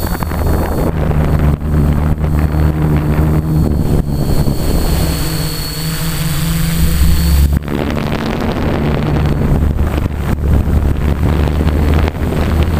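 Multirotor quadcopter's electric motors and propellers buzzing in flight, heard from the camera mounted on it. The pitch shifts a few times as the throttle changes, and a thin high whine comes and goes.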